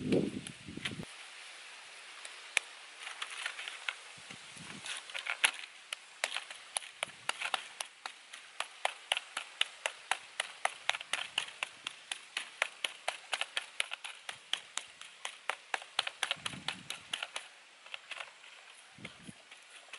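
A hand patting and pressing a lump of wet clay flat on a leaf: a long run of quick slaps, about three a second, thinning out near the end.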